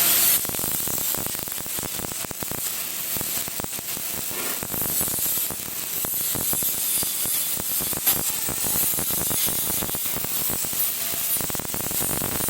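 MIG welding arc crackling, a dense, steady run of sharp crackles over a hiss, with one louder pop about eight seconds in.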